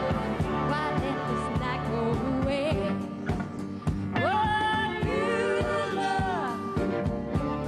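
A woman singing a country-pop song into a handheld microphone over a band with a steady drum beat. About four seconds in she slides up into a long held note with vibrato that ends shortly before the close.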